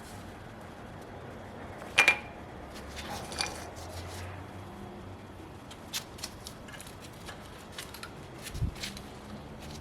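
Metal brake parts being handled, giving scattered light clinks and taps. The sharpest is a double clink about two seconds in, and a dull thud comes near the end.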